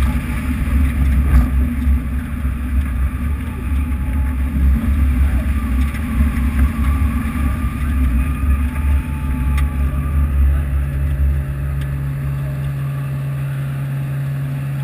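Car engine running while driving, under a heavy low wind rumble on the exterior-mounted camera microphone. About nine seconds in a steady engine hum comes through, and the wind rumble dies away a couple of seconds later as the car slows.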